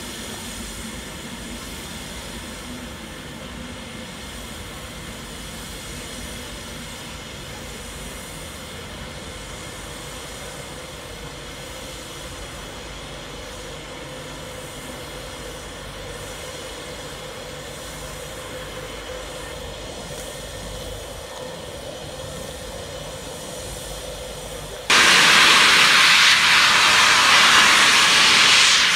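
Steam locomotive 60163 Tornado, an LNER Peppercorn A1 Pacific, standing with a steady faint hiss and hum. About 25 seconds in, a loud hiss of escaping steam starts suddenly and keeps blowing as steam is released around the engine.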